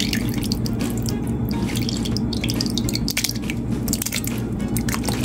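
Canned diced tomatoes sliding out of the can and plopping and dripping wetly into a pot of sauce and meat, over steady background music.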